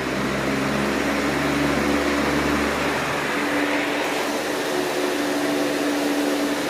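Electric pedestal floor fan running steadily: a whoosh of air from the blades over a humming motor. It is plugged into a newly wired outlet as a test, so its running shows the outlet has power.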